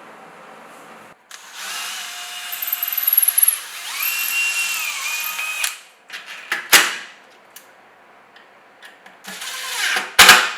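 Handheld power drill running in bursts: one run of about four seconds whose motor pitch steps up partway through, then two short bursts, the last about a second long.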